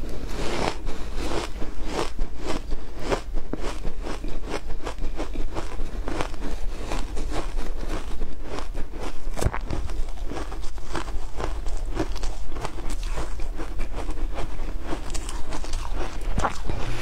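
Shaved ice dusted with matcha being bitten and chewed close to a clip-on microphone: a dense, continuous run of crisp crunches, several a second.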